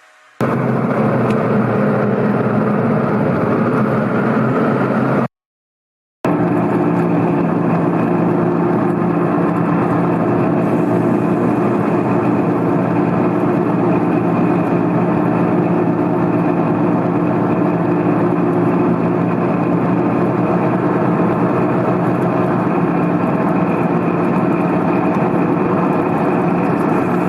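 Steady engine noise running evenly. It drops out to complete silence for about a second around five seconds in, then carries on unchanged.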